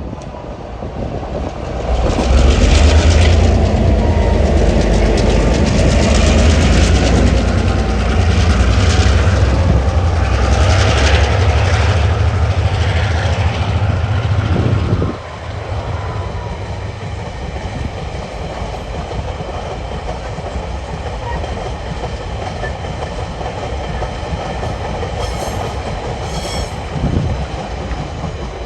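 TasRail DQ class diesel-electric locomotives passing, their engines giving a loud, heavy rumble that drops away suddenly about halfway through. Empty ore wagons then roll by with a steady clatter of wheels on the rails.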